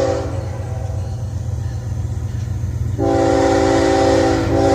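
Locomotive air horn, a Nathan K5HL, sounding a crossing signal: one blast cuts off just after the start and a long blast begins about three seconds in, over the low rumble of the approaching diesel train.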